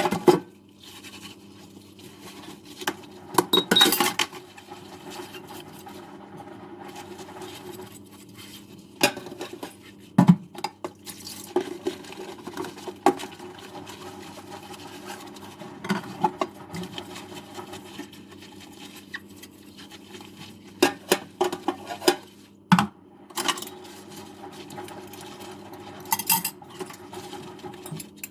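Dishes and cutlery knocking and clinking against each other during hand washing-up in a kitchen sink, in irregular clusters of sharp clatters over a steady low background.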